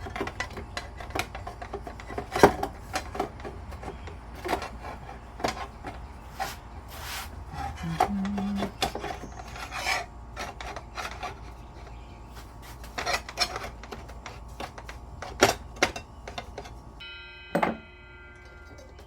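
Irregular clicks, knocks and rubbing as a saw blade and its metal parts are handled and fitted onto a Delta 10-inch compound miter saw, with a sharp knock about two seconds in and another near the end. A brief ringing tone follows shortly before the end.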